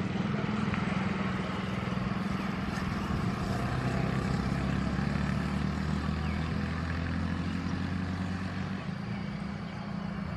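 A steady, low engine drone that eases slightly near the end.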